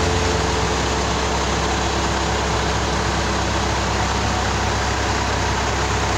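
Forklift engine running steadily.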